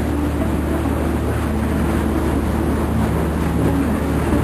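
A boat's engine running with a steady low drone, over a constant rushing noise of the hull moving through water and broken ice.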